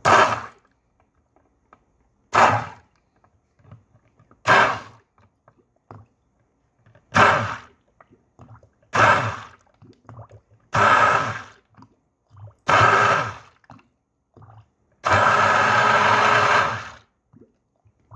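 Stick blender pulsed in a glass beaker of carbomer and water to mix it into a gel: seven short bursts about two seconds apart, then one longer run of about two seconds near the end.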